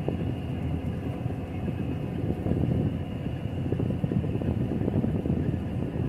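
Combine harvester running steadily, heard from inside the cab: an even drone of engine and machinery with a faint steady high whine over it.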